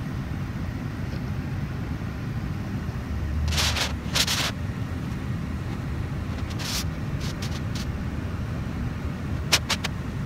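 Low steady rumble of a car heard from inside its cabin. A few short hisses come around the middle, and a quick run of sharp clicks comes near the end.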